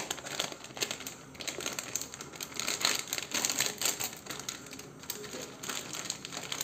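Foil-lined plastic chip packet crinkling and crackling as hands pull its sealed top apart and open it: a dense, irregular run of quick crackles.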